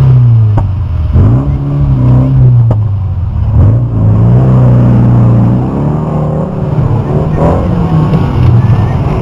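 Rear-wheel-drive banger race cars' engines revving hard as they drive past through a bend, the pitch rising and falling as each car comes by, with a few short sharp knocks.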